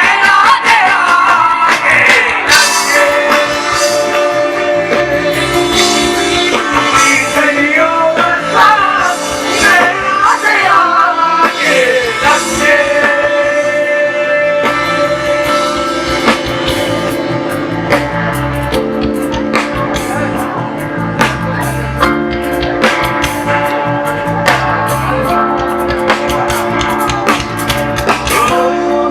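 Live band music: a gliding, ornamented melody line over a dense, steady accompaniment, turning to long held notes about halfway through.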